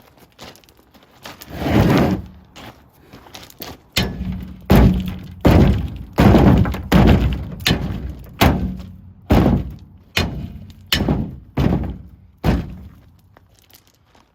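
Sledgehammer blows on the steel wheel and tire bead of a 1925 Galion's solid front wheel, beating the old bead loose from the rim flange. There is one heavy blow about two seconds in, then a steady run of a dozen or so strikes, roughly two a second, which stops shortly before the end.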